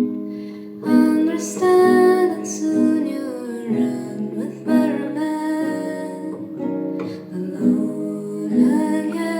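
Music: a plucked and strummed acoustic guitar playing chords in an instrumental passage.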